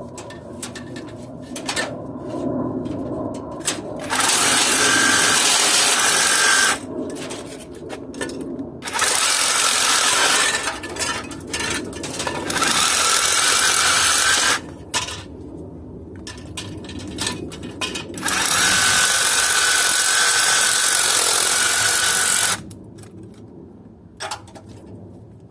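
Electric drill run in four bursts of two to four seconds each, drilling into the air conditioner's sheet-metal casing at its spot welds, with light metal clatter between the bursts.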